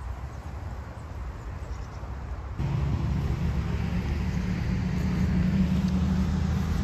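A steady, low engine drone that starts abruptly about two and a half seconds in and holds, over an outdoor background rumble.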